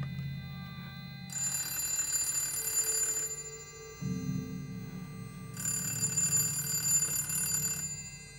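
Telephone bell ringing twice for an incoming call, each ring about two seconds long with a pause between, over low background music.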